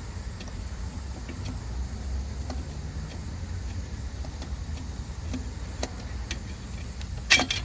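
A hand wrench working out a long 8 mm bolt by the water pump and tensioner: faint scattered metal clicks over a low steady rumble, then one sharp metallic clink near the end.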